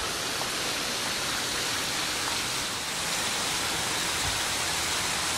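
A steady, even rushing hiss.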